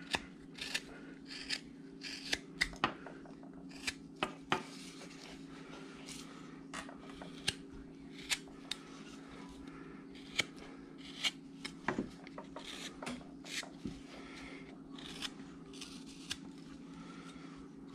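Carving knife slicing thin cuts into a wooden carving: a series of short, crisp snicks at irregular intervals. A faint low steady hum runs underneath.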